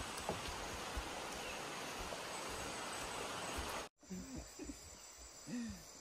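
Steady, even hiss of rainforest background noise that cuts off abruptly about four seconds in. After the cut comes a quieter forest background with a thin, high, steady tone and a few faint distant voices.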